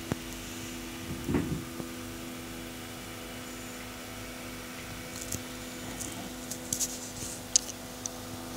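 Steady low hum of a running desktop PC, with a soft thump about a second in and a few light clicks in the second half.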